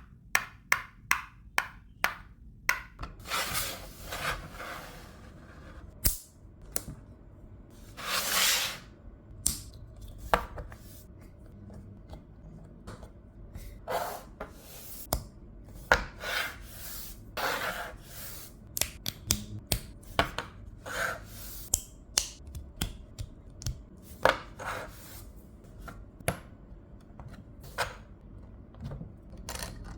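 Plastic LEGO bricks handled during a build: irregular sharp clicks as pieces are picked up, set down and pressed together, with short scraping rustles between them, the longest about eight seconds in.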